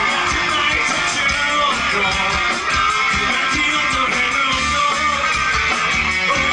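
Live rock band music with strummed guitar over a steady beat.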